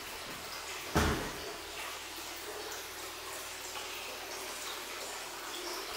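Hot-spring water running into an indoor wooden bath, a steady splashing trickle with scattered drips. One sharp knock about a second in.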